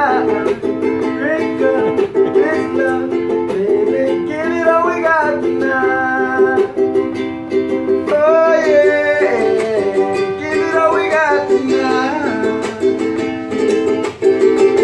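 A man singing while strumming chords on a ukulele.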